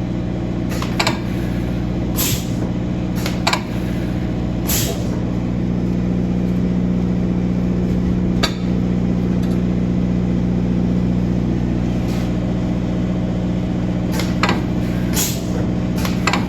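Scotchman SUP 600 metal-cutting saw running with a steady hum, broken by about a dozen short, sharp clicks and hisses from the machine and its clamps.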